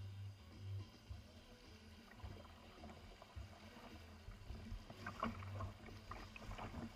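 Water splashing and dripping around a kayak on a moving river, with a few small, sharp splashes clustered near the end. A gusty low rumble of wind on the microphone runs underneath.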